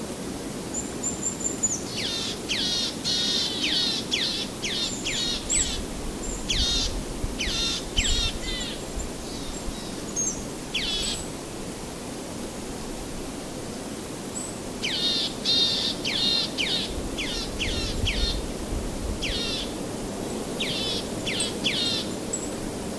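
Songbird singing in two bouts of quick repeated sweeping chirps, with a pause of a few seconds between, over a steady outdoor background rush.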